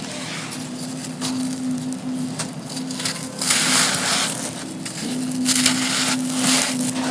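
Dry, gritty chunks crumbling and crushing, with scattered crackles and louder crunching stretches in the second half, over a steady low hum.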